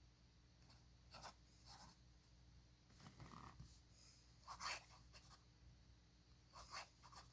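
Faint scratching of a Waterman's 94 fountain pen nib on paper, a few short strokes with pauses between, the loudest about four and a half seconds in.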